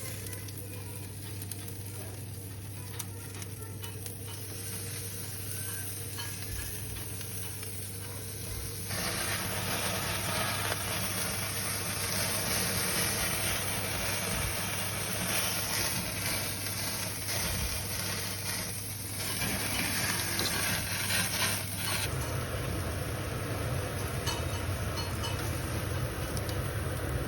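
Marinated octopus pieces sizzling on a hot char grill, the sizzle growing louder and fuller about nine seconds in, over a steady low hum.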